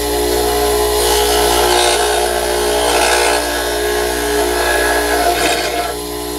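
Bench grinder running with a steady motor hum while the end of a two-flute end mill, held in a sharpening fixture, is ground against the edge of the wheel. The grinding hiss starts about a second in, comes and goes, and stops shortly before the end.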